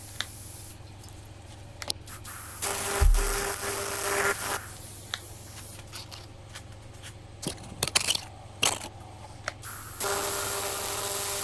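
TIG welding arc on thin aluminium beer cans, a buzzing hiss that strikes up for a couple of seconds about three seconds in and again near the end, with faint crackles and clicks between the welds.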